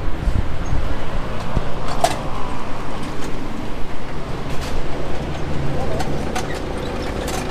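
Street traffic rumble, with a few short sharp clicks as a wheel clamp is fitted to a van's front wheel.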